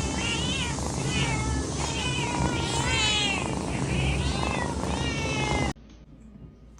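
A cat meowing over and over in a quick run of short, rising-and-falling calls, cut off suddenly near the end.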